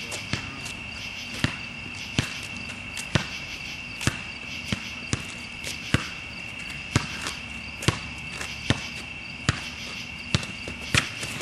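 A basketball being dribbled on a hard outdoor court, with sharp bounces about once a second, over the steady high chirring of insects.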